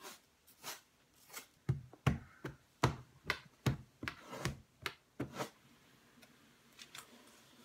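A run of sharp taps and knocks from wooden spoons and hands, about two to three a second. Several carry a dull thud, heaviest a couple of seconds in, and they thin out to a few light taps near the end.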